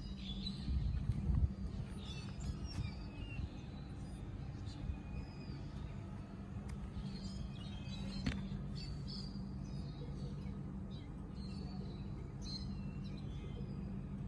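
Small birds chirping on and off over a steady low hum, with one sharp click about eight seconds in.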